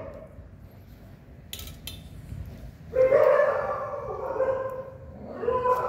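Dog crying out in pain while its deep maggot wound is probed by hand: a long drawn-out whining cry about three seconds in, and a second one starting near the end. Two short sharp clicks come about a second and a half in.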